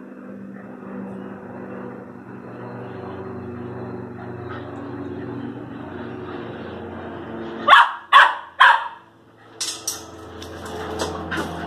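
Young terriers barking: three sharp barks in quick succession about eight seconds in, then a few more, over a steady low hum.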